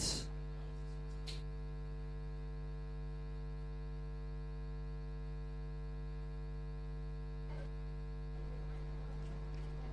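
Steady electrical mains hum: a low buzz with a ladder of fainter tones above it, unchanging throughout.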